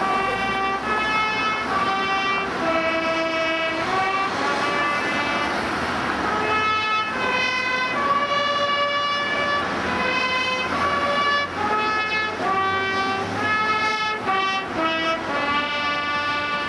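Trumpets playing a tune in held, bright notes, the pitch stepping up and down from one note to the next.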